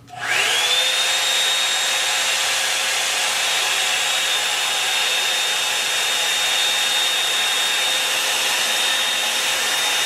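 Revlon One Step hair dryer brush switched on: its fan motor spins up with a quickly rising whine, then runs loud and steady, a high whine over the rush of blown air.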